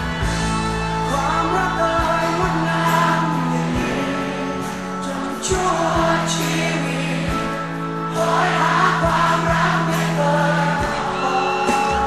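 Live Thai pop song: several voices singing together over a band, with a steady bass note and regular drum hits.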